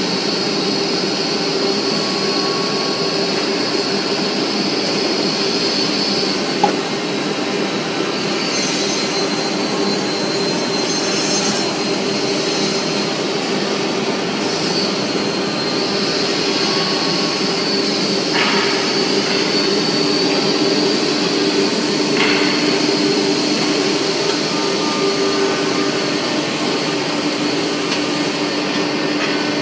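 Semi-automatic panel saw running: a steady machine noise with a low hum and a high whine, a brief hiss of added high noise partway through, and a single sharp click about a quarter of the way in.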